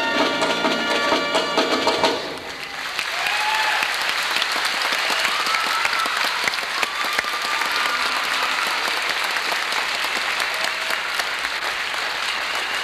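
A youth marching band's brass section holds a final chord that cuts off about two seconds in. An audience applauding fills the rest, with a few shouts rising over it.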